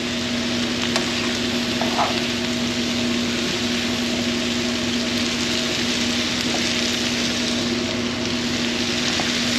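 Cabbage frying and sizzling in a skillet while it is stirred with metal tongs, with a couple of light clicks of the tongs against the pan about one and two seconds in. A steady low hum runs underneath.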